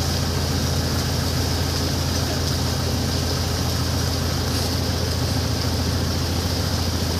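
A boat's engine running at a constant pace, a steady low drone with an even hiss above it, heard from aboard the boat.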